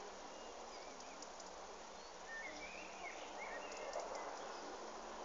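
Small birds chirping in short, quick calls over a steady outdoor hiss, busiest about halfway through.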